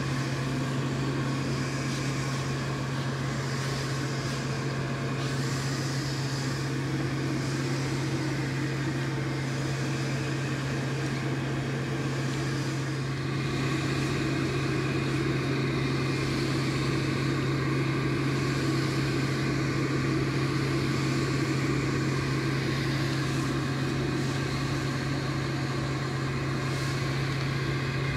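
Steady hum of an electric air blower running continuously, growing a little louder about halfway through.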